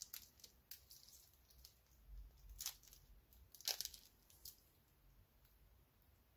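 Faint crinkling and crackling of thin clear plastic wrap being peeled off a watch and its steel bracelet, a scatter of small crackles with two sharper ones about three and four seconds in.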